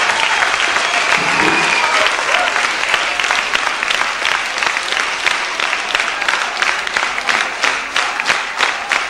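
A large crowd applauding. A few seconds in, the applause turns into rhythmic clapping in unison at about three claps a second.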